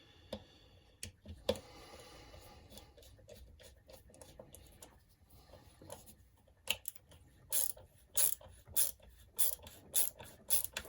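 A screw being driven by hand into the RC car's chassis: quiet scraping and rubbing, then from about two-thirds through a steady run of sharp clicks, about two a second, as the tool is turned.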